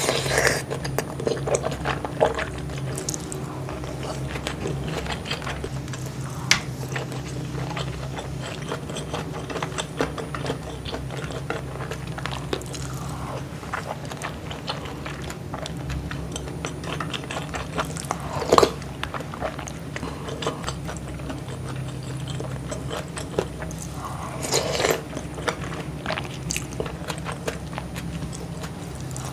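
Close-miked eating of a Korean home meal: steady chewing and biting with many small clicks, and a few louder sharp clicks, the loudest about eighteen seconds in.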